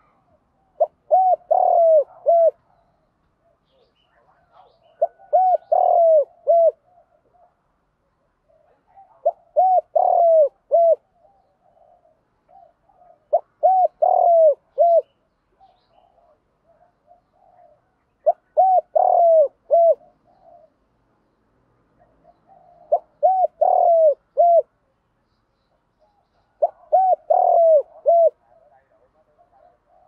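Spotted dove cooing: seven phrases of four or five short, rising-and-falling coos each, one about every four seconds. It is the quick, challenging song that Vietnamese keepers call giọng thúc, used to provoke rival doves.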